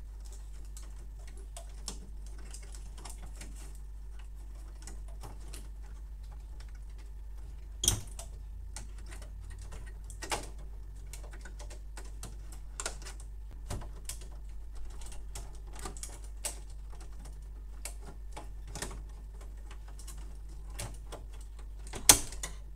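Small scattered clicks and taps of plastic and cable as a wire harness and flat ribbon cables are pressed into the plastic cable guides of an open Canon laser printer, with two sharper clicks about eight seconds in and near the end.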